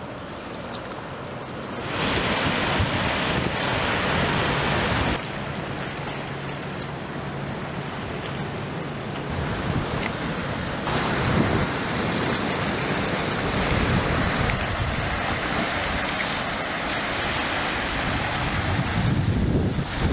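Sea surf washing and breaking among rocks on a rocky shore, a steady rush of foaming water that swells and ebbs as each wave comes in.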